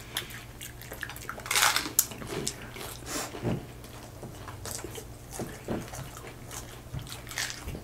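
Eating sounds: people chewing and crunching hard taco shells topped with spicy noodles. There are scattered small clicks and crackles, and a louder crunch about a second and a half in.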